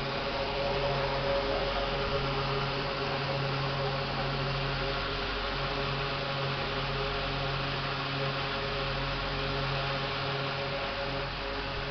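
Egg incubator's electric fan motor running with a steady hum.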